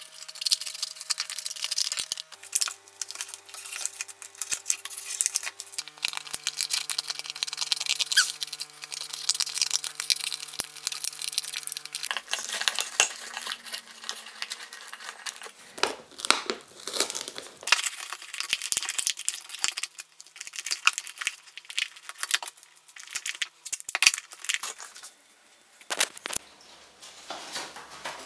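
Crinkling, tearing and rustling from hands cutting up an old tube-shaped pinhole camera and working inside a tap shoe, with frequent sharp clicks.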